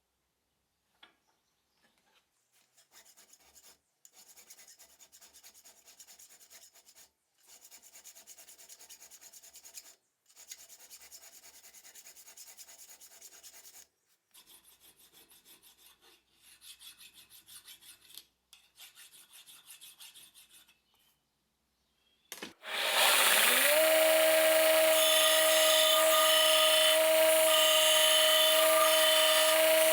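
Rapid hand strokes of a file on the knife work, in short runs of a few seconds with pauses between. About three-quarters of the way through, an electric power tool switches on: its motor rises quickly in pitch, then runs steadily and much louder than the filing.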